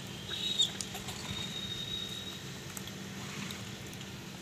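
Outdoor ambience with a steady low hum, a short sharp high-pitched chirp about half a second in, and a thin, steady high whistle-like tone for about a second shortly after.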